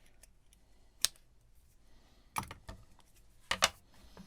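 Sharp click about a second in, then two short bursts of light clicking and clatter: small hard parts and tools being handled while a hard drive is being taken apart.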